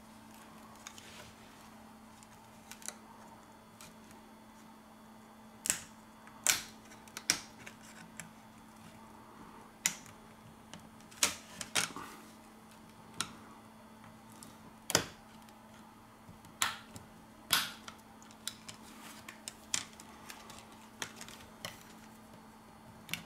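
Sharp plastic clicks and snaps at irregular intervals, well over a dozen, as the LG K50's middle frame is pried loose from the phone. A faint steady low hum runs underneath.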